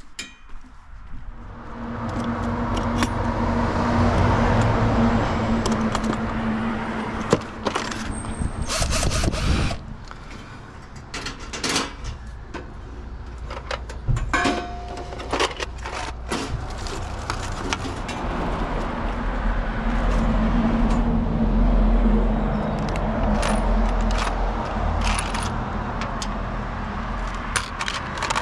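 Clinks and clicks of metal being handled, from a stainless steel mailbox and a case of screwdriver bits, over the rumble of passing road traffic that swells up twice.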